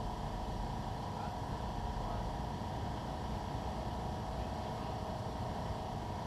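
Yamaha YFZ450R quad's engine idling steadily, with wind noise on the microphone.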